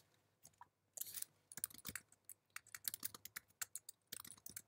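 Computer keyboard being typed on: quick runs of faint key clicks with short pauses between them, as commands are typed and entered.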